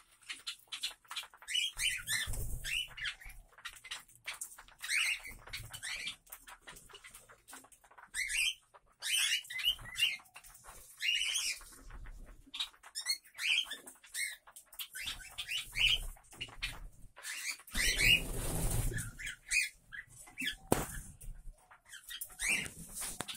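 A flock of cockatiels chirping and calling in many short rising and falling chirps, with flurries of wing flapping, the loudest about three-quarters of the way through.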